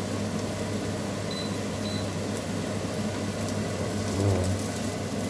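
Minced beef, carrot and garlic frying in butter in a non-stick pan: a steady sizzle over a constant low hum, with a spatula stirring the mince about four seconds in.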